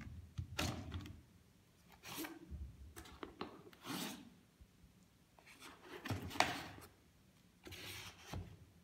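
DJI Phantom 4 Pro flight batteries being pulled out of and pushed back into a foam carrying case: several short scrapes of hard plastic rubbing against foam, with a few light clicks.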